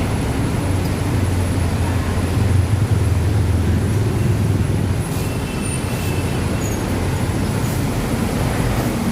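Low engine drone of a city bus with street traffic noise around it; the drone eases off about five seconds in.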